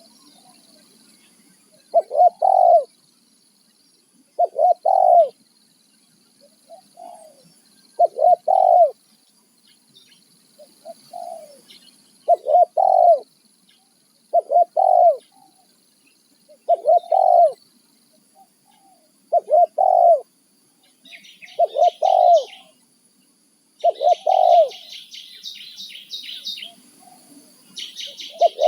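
Spotted dove cooing: a short phrase of a few quick notes repeated about every two seconds. About two-thirds of the way in, bursts of rapid high chirping from a small bird join in.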